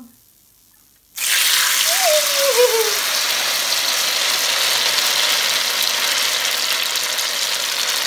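Battered elderflower umbel deep-frying in hot oil in a wok: a loud sizzle starts suddenly about a second in as the blossom goes into the oil, then carries on steadily.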